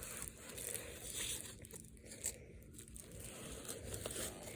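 Faint rustling and crinkling of packaging being handled, with a brief click about two seconds in.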